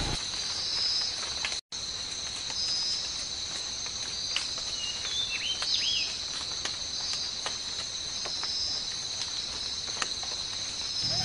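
Steady chorus of insects, like crickets, trilling: one high, even buzz with a pulsing chirp above it. A few short, higher chirps are scattered through it, and the sound drops out completely for a moment just under two seconds in.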